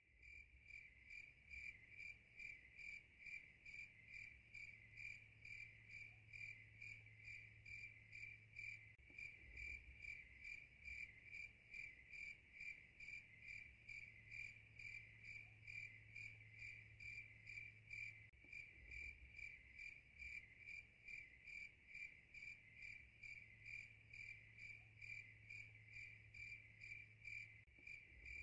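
Crickets chirping faintly in a steady, even rhythm, about three high chirps a second.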